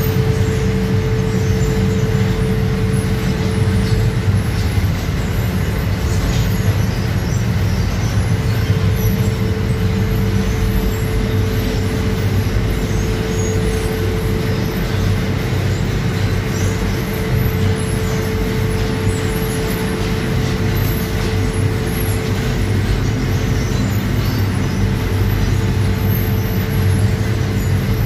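Automated pita bread line, its tunnel oven and wire-rod conveyor running with a steady loud machine drone: a low hum with a held mid-pitched tone over it.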